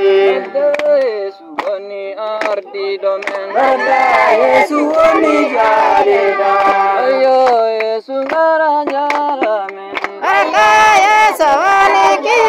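A group of men, women and children singing together a repetitive praise song about Jesus, with hands clapping.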